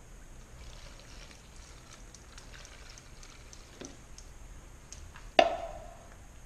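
Liquid trickling faintly from a metal can's spout into a plastic mixing cup, with small handling ticks. About five seconds in, the metal can is set down on the counter with one sharp knock that rings briefly.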